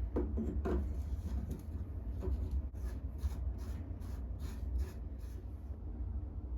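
PTFE plumber's tape being wrapped around the threaded end of a shower arm: rubbing and stretching sounds at first, then a run of regular scratchy strokes, about two or three a second, from about three seconds in until near the end, over a steady low hum.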